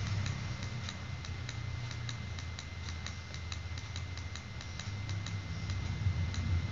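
Computer mouse button clicking repeatedly and irregularly, about three clicks a second, over a steady low hum.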